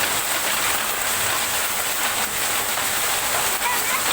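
Heavy rain mixed with small hailstones pelting down: a steady, dense hiss with many scattered small hits.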